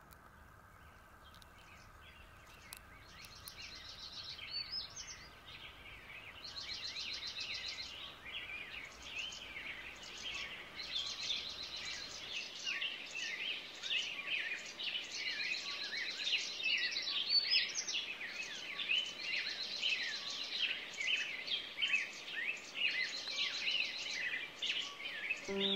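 Songbirds chirping and trilling, many overlapping calls. They start faint and build into a dense chorus after the first few seconds, with one trilled phrase recurring every few seconds.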